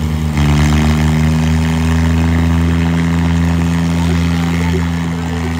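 Diesel engines of two Fiat farm tractors going from a chugging idle to full throttle about half a second in, then holding a steady, heavy drone under full load as the tractors pull against each other.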